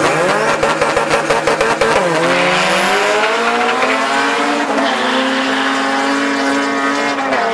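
Two Honda Civic hatchback drag cars launching hard. Their engines rev up with a rapid crackle off the line, the pitch drops at gear changes about two seconds and about five seconds in, and the engines then run on at high revs as the cars pull away.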